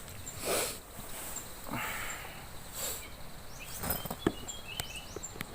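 Forest dawn chorus of birds and insects, with short high chirps repeating throughout. Over it come a few bursts of rustling and several sharp clicks in the second half, as gear is handled at the camp.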